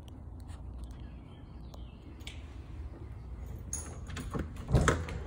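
Apartment front door being unlocked and opened: a few clicks and rattles of the lock and handle, ending in a louder clunk near the end.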